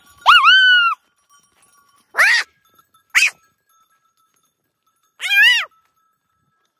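Goats bleating: four separate high calls, each rising and falling in pitch, with a short one about three seconds in.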